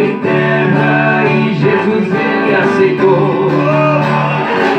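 Violão (acoustic guitar) and viola caipira playing a plucked instrumental passage of a Brazilian country song.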